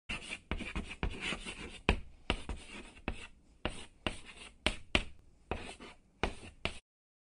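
Chalk writing on a chalkboard: quick scratchy strokes with sharp taps as the chalk strikes the board, cutting off suddenly near the end.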